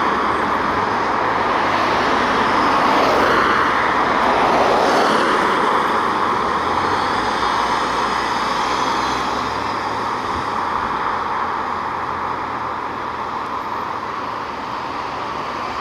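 Emergency ambulance siren sweeping up and down as it moves away and fades into the distance, over steady road-traffic noise from passing cars.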